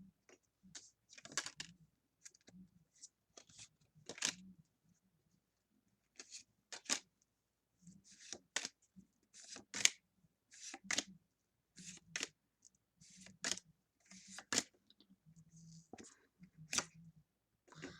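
Pokémon trading cards being handled and flipped through one by one: a string of short, crisp card slides and snaps at irregular intervals, about one every half second to second.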